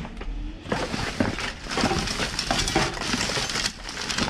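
Junk in a dumpster being rummaged through: irregular crinkling, crunching and clattering of discarded items being shifted and handled.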